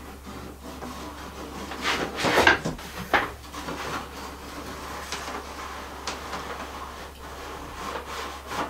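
Fish tape being pulled through a wooden wall and ceiling cavity, scraping and rubbing against the wood, with louder scrapes about two and three seconds in.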